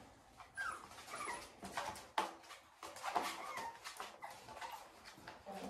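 Seven-week-old American bully puppies giving several short, high whines, with a few light clicks in between.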